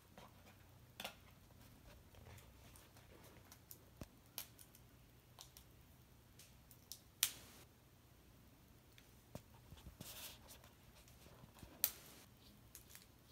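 Party Pop Teenies toy capsule being torn open by hand: faint, scattered sharp clicks and short crinkles of its paper and plastic wrapping, with the loudest snaps about seven and twelve seconds in.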